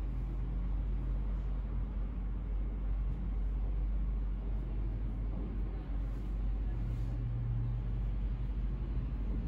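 Steady low background rumble and hum, with faint rustling of viscose fabric as it is smoothed flat by hand on a cutting table.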